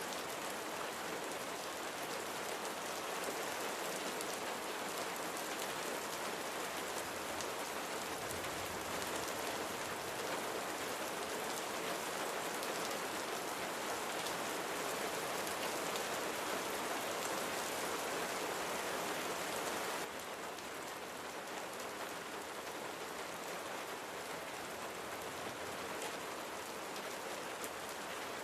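Steady rain falling: an even hiss with a fine patter of drops. It steps down slightly in loudness suddenly about twenty seconds in.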